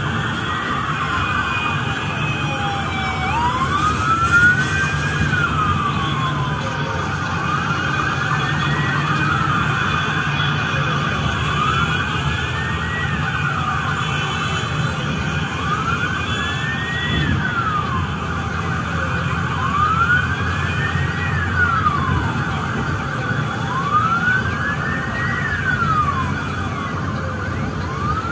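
Police escort siren wailing, its pitch rising and falling in slow sweeps about every four seconds, over a steady low rumble of motorcycle and bus engines in traffic.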